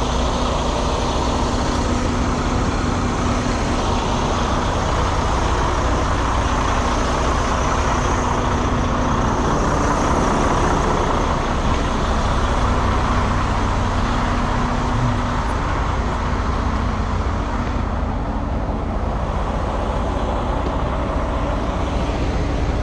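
Steady rumble of heavy trucks running, with a steady hum that fades out about two-thirds of the way through.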